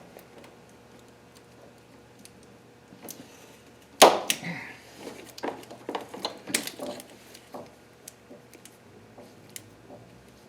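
Hand tools and metal parts clinking and knocking during work on a car engine, with one sharp knock about four seconds in, then a run of smaller clicks.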